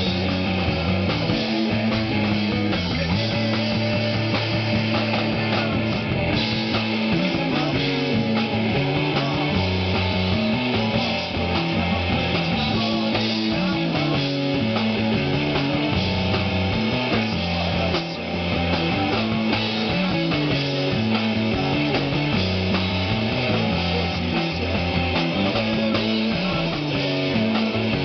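Punk rock band playing live: electric guitar and drum kit, loud and steady throughout.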